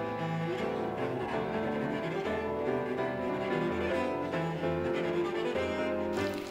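Instrumental background music led by bowed strings in a cello-like low register, playing slow held notes. The music changes abruptly just before the end.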